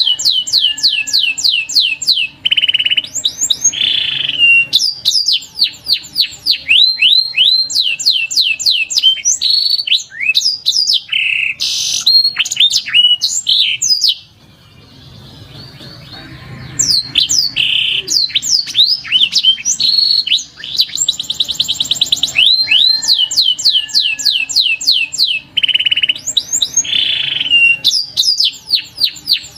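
Domestic canary singing: rapid rolls of quickly repeated downward-sweeping whistles with some longer single notes, pausing for about two seconds around the middle.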